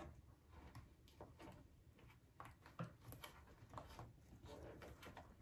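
Near silence: room tone with faint scattered small taps and rustles of hands handling stitched fabric and an embroidery hoop.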